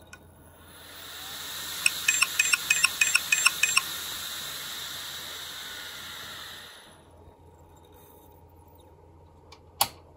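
Opened, failed Maxtor Atlas 10K V 10,000 rpm SCSI hard drive spinning up with a rising whirring hiss, then spinning down about seven seconds in. Early in the spin, its head actuator clicks sharply about ten times in quick succession, the dead drive failing to come ready. A single sharp click sounds near the end.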